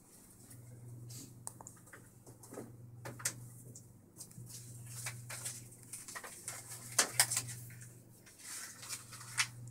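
Irregular light clicks and taps of keys being typed, thickest in the second half, with a couple of louder clicks about seven seconds in, over a steady low electrical hum.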